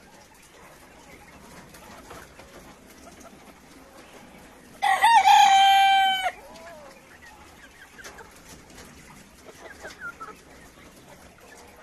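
Cochin rooster crowing once, about five seconds in: a single crow lasting about a second and a half, held on one pitch and dropping off at the end. Faint hen clucks follow near the end.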